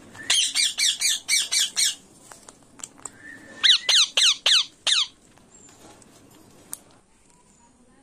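Indian ringneck parakeet squawking in two quick runs of harsh calls, each call dropping in pitch: about eight in the first two seconds, then about six more from a little past halfway through.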